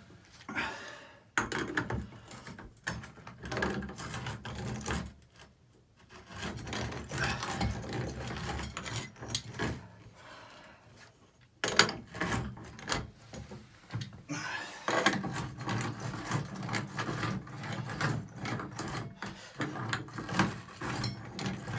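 Hand tools working on a Price Pfister tub and shower valve stem in a tiled wall: irregular scraping and rubbing with small clicks and knocks of metal on metal. There is one sharper knock about twelve seconds in.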